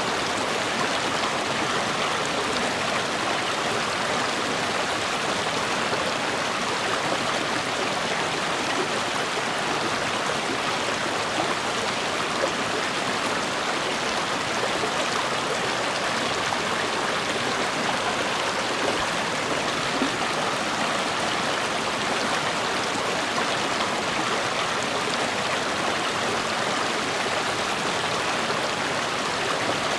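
A stream of water flowing steadily over rocks: an even, continuous rush and babble with no change.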